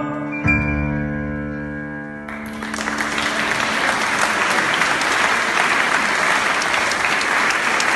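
A final held musical chord rings out and fades, then applause breaks out about two seconds in and keeps going steadily.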